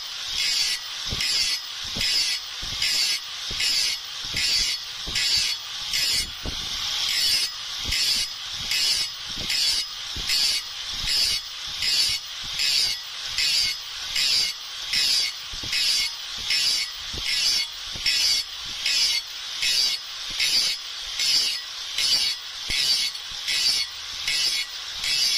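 Steady back-and-forth scraping strokes of a hand abrasive tool on the steel of a cleaver blade, about three strokes every two seconds, each a dry rasp.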